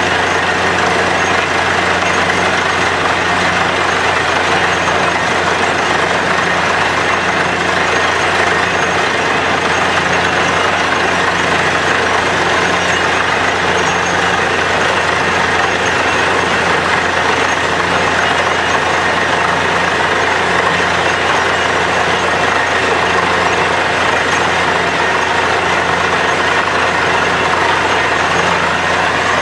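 Truck-mounted borewell drilling rig running steadily under load as it drills, with water and rock cuttings blasting out of the hole around the drill pipe. A loud, continuous roar with a steady low hum and a slow regular pulsing underneath.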